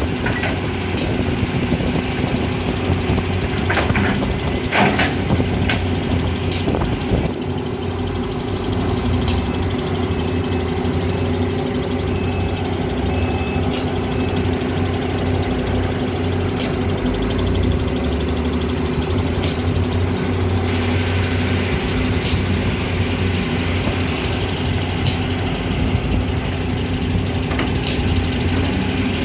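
Volvo EC210 BLC hydraulic excavator's engine running steadily under load as it digs and loads, with sharp clicks every few seconds. A reversing beeper sounds faintly about ten seconds in.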